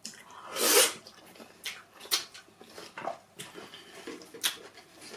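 Close-up eating sounds: wet mouth clicks and lip smacks while chewing pounded yam with vegetable soup, with one loud breathy burst, like a sharp exhale or sneeze, just under a second in.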